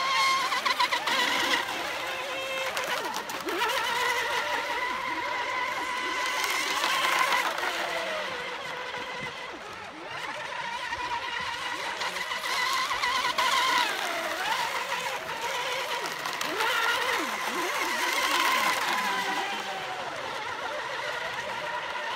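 Several electric radio-controlled hydroplane racing boats running at speed, their motors and propellers giving a high whine that wavers and dips in pitch as the boats pass, over a hiss of spray.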